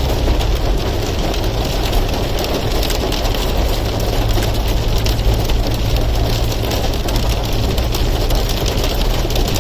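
Hailstones pelting down in a dense, continuous patter of small hits, over a steady low vehicle rumble.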